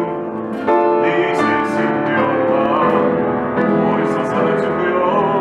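Piano music: held chords with new notes struck every fraction of a second and a melody line above them.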